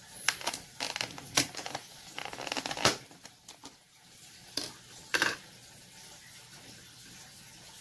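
Thin plastic deli-cup lid crackling as it is pried open, with paper towel crinkling inside the cup; a quick run of sharp clicks and crinkles for about three seconds, then two more sharp clicks near the middle.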